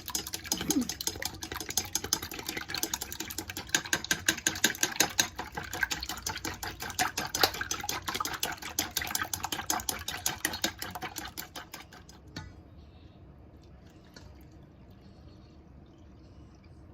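A mixture being beaten briskly in a bowl, the utensil clicking rapidly against the bowl's side. The beating stops about twelve seconds in.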